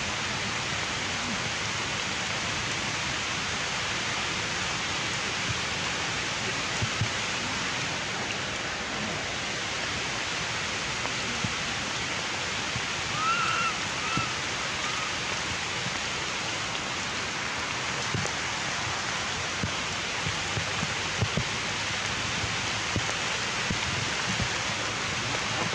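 A steady, even rushing hiss of outdoor background noise, with a brief faint high squeak or chirp about halfway through.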